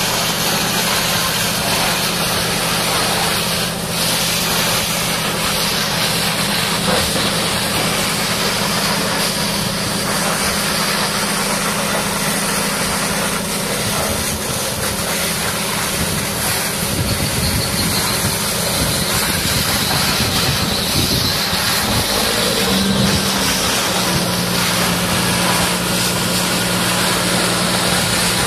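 Heavy engine idling steadily under a broad, even hiss. The engine's pitch briefly steps up and then settles a few seconds before the end.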